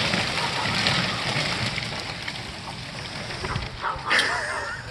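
Crown of a felled tree crashing down, its branches and leaves rushing and rustling as it settles, the noise fading away. About four seconds in, a short crack and a brief wavering whine.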